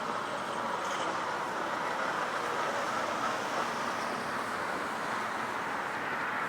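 Steady city street noise: an even rush of passing traffic.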